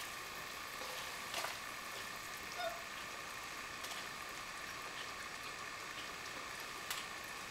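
Pot of chicken broth and carrots boiling on the stove: a faint, steady hiss with a couple of light clicks.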